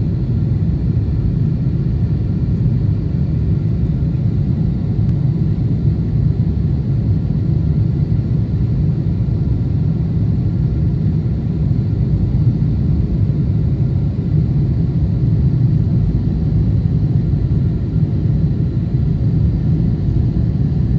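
Steady low rumble inside the passenger cabin of a Boeing 747-8 on its landing approach: its four GEnx engines and the rush of air over the wing and extended flaps.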